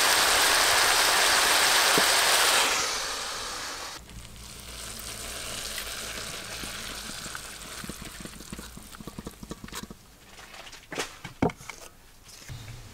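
Chopped vegetables sizzling loudly in a hot wok, the sizzle dying away about three seconds in. Later, quieter, a few sharp knocks and clicks of utensils, the loudest near the end.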